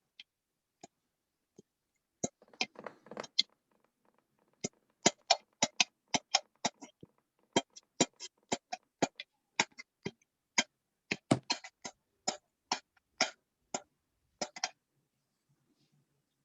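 A series of sharp, irregular clicks, two to four a second, starting about two seconds in and stopping shortly before the end, with a brief rustle among the first few.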